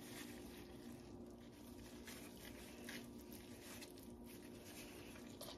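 Faint, soft squishing of mozzarella curd being squeezed and folded by hand, over a steady low hum.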